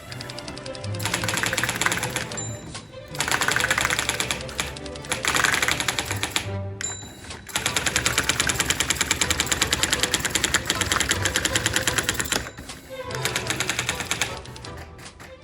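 Sears Electronic Communicator 2 daisy wheel typewriter printing in bursts of fast, evenly spaced strikes, the longest a steady run of about five seconds midway, over background music.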